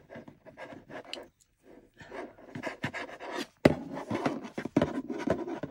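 Black binder clips on a thick paper-and-fabric journal block scraping and knocking on a wooden desk, with paper rustle, as a needle and silk ribbon are pulled hard through the stack. Sparse at first, then busier after one sharp knock about two thirds of the way in.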